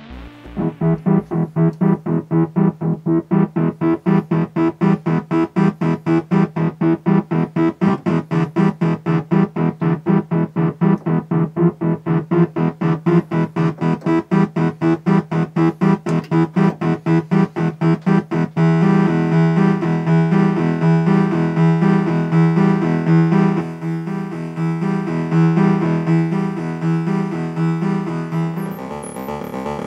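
Moog Sub 37 analog synthesizer being played: a fast, evenly repeating run of notes, about four a second. About two-thirds of the way through, the pattern changes to a denser sequence.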